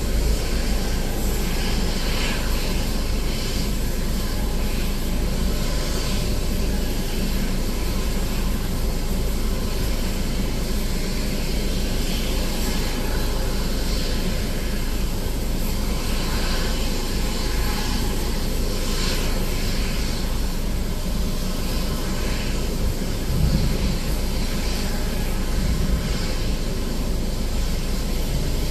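Steady airport-ramp noise heard from inside a vehicle cab: a constant deep rumble with an even hiss above it, holding level throughout, with no distinct events.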